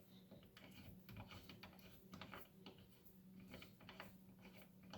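Faint, irregular small metal clicks and ticks as the bullet seating die of a reloading press is backed off by hand, over a steady low hum.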